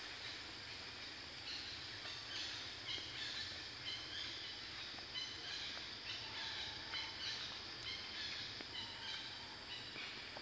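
Outdoor ambience of a steady high hiss, with small birds chirping in short repeated calls from about a second and a half in and a few faint clicks.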